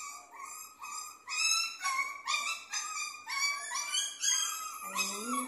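Puppy crying in a steady string of short, high-pitched yelps, about two to three a second, in distress at being held and given an injection.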